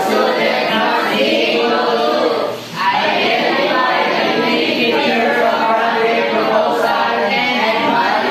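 A group of voices singing together, with a short break about two and a half seconds in.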